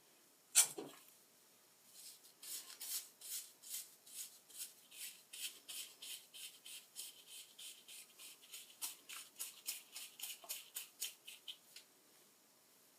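A teasing comb backcombing hair: a rapid run of short, scratchy strokes, about two to three a second for some ten seconds. A single sharp knock comes just before the strokes begin.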